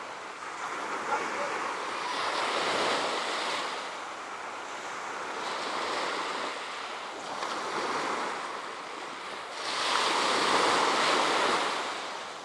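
Small sea waves breaking and washing up a sandy beach, surging about four times, the last surge the loudest.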